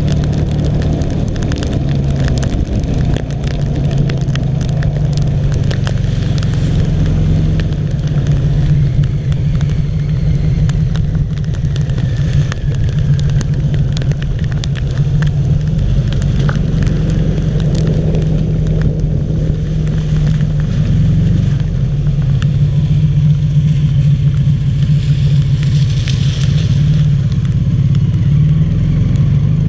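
Rewaco trike's engine running steadily on the move, with wind and road noise and a crackle of raindrops hitting the handlebar-mounted camera. A brief swell of hiss comes near the end.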